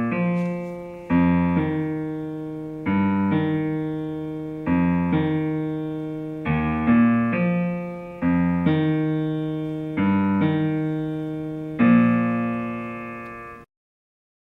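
Piano playing a slow passage: a bass note and chord are struck about every two seconds, with a few extra notes between, and each one rings and fades. The music cuts off abruptly near the end.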